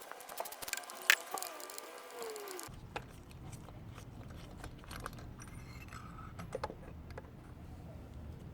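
2010 Toyota Yaris engine running, a steady low rumble from a few seconds in, with scattered clicks; the owner reports that the engine is misfiring. For the first few seconds the rumble drops out, and clicks and a wavering tone are heard instead.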